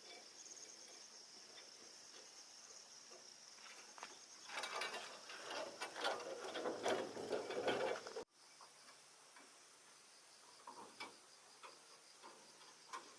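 Crickets chirping steadily. About four seconds in comes a close, dense run of scraping and clattering that lasts about four seconds, cuts off abruptly, and leaves only a few scattered clicks.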